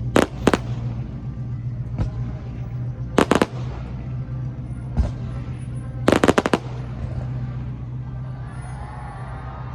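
Aerial fireworks bursting in sharp bangs: two near the start, a quick volley about three seconds in, a single bang around five seconds, and a rapid crackling string a little after six seconds, over a steady low hum.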